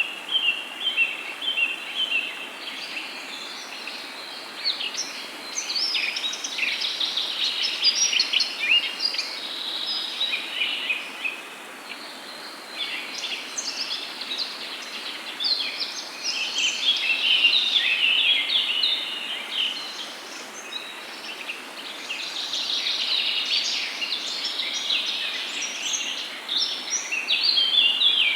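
Several songbirds chirping and trilling over one another in dense, overlapping calls that swell and fade in waves, over a faint steady hiss.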